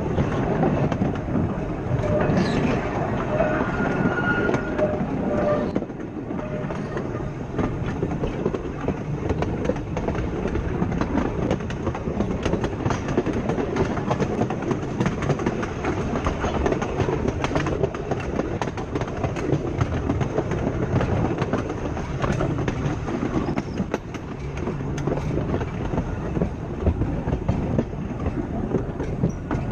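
Blackpool 'Boat' open-top tram running along jointed track, its wheels rumbling steadily with frequent clicks over the rail joints.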